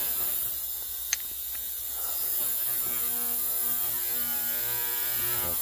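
Ultrasonic cleaner running: a steady buzzing hum made of several steady pitches. A single light click about a second in.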